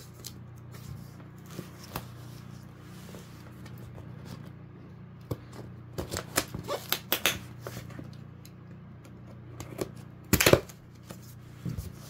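Scissors slitting the packing tape on a cardboard box: scattered clicks and scrapes of the blades and cardboard, busiest in the middle. Near the end comes a single louder ripping rasp as the flaps are torn apart.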